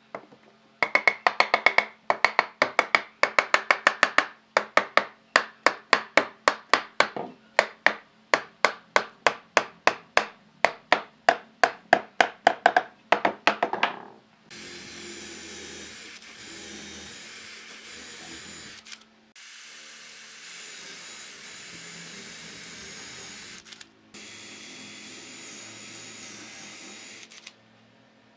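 Hammer blows on wooden blocks, many sharp strikes at about three a second, driving the blocks' joints closed. About halfway through, an electric drill bores into the wood in three runs of several seconds each, with short stops between them.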